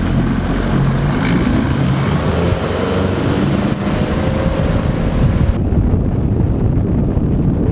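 Suzuki four-stroke outboard motor opened up to full throttle, its note rising as the bass boat speeds up, with wind rumbling on the microphone. About two-thirds through the sound changes to a steady low rumble.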